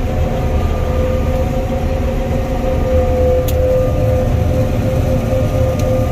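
Combine harvester running steadily under load while harvesting beans: a low engine rumble with a steady whine over it.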